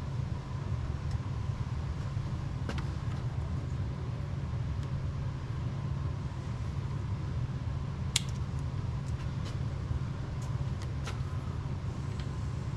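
A steady low rumble, with a few sharp clicks and snaps from hand work on the camera's wiring; the sharpest comes about eight seconds in.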